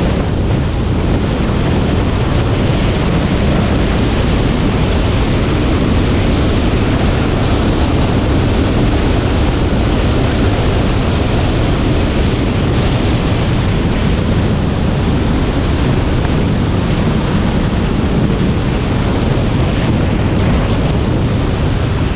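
Steady rush of wind across a hood-mounted camera's microphone, mixed with road and tyre noise from a Honda S2000 driving at an even road speed. No engine revving stands out.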